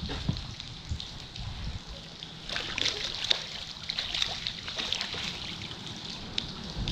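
A crappie splashing at the water's surface as it is scooped into a landing net, busiest from a couple of seconds in until about five seconds. Rain patters on the water and boat throughout.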